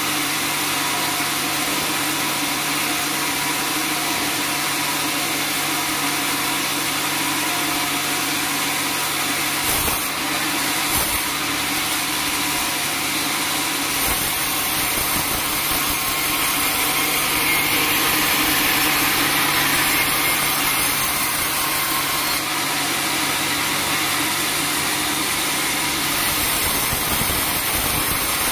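Band sawmill running, its blade sawing lengthwise through a teak log over a steady machine hum; the hiss shifts abruptly a few times.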